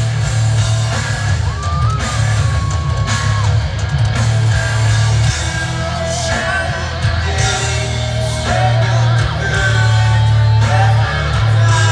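Rock band playing loud, heavy music with a singer, guitars and drums.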